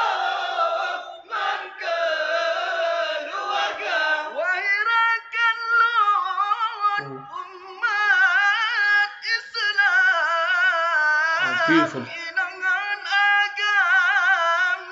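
Group of men chanting together, giving way about four seconds in to a solo male voice singing a sahur wake-up song into a microphone, stretching the notes out in long wavering, ornamented lines.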